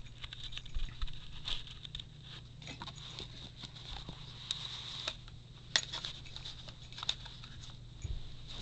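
Plastic airsoft claymore mine being handled and loaded by hand: scattered small clicks, taps and scrapes at irregular intervals.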